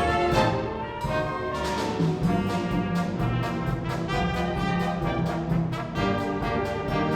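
Music played by brass instruments with orchestral backing, moving through a quick run of notes over a held low part.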